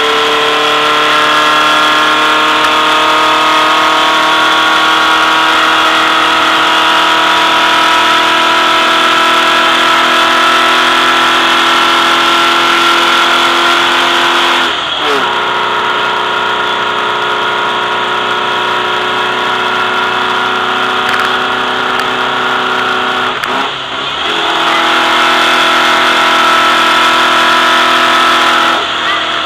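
Volkswagen race car's engine pulling hard at high revs, its pitch climbing slowly, with two quick gear changes, about halfway through and near the end, where the sound briefly drops and picks up again at a lower pitch.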